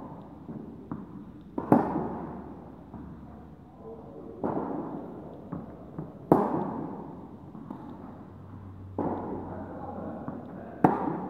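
Tennis rally: a ball struck back and forth with rackets, five sharp hits about two seconds apart, louder and quieter hits alternating. Each hit echoes through the large indoor tennis hall.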